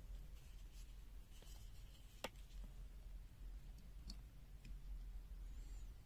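Quiet handling clicks as multimeter test probes are put to an LED's leads during a diode test, over a low steady hum: a few faint clicks, with one sharper click about two seconds in.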